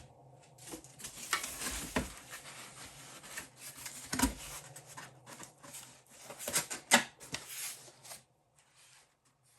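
Packaging and plastic accessories being handled: rustling and scraping with several sharp knocks, the loudest about seven seconds in, dying away near the end.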